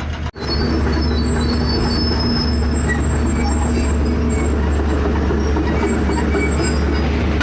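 Tracked excavator travelling: the diesel engine runs with a steady low drone, and the steel tracks squeal and whine over it.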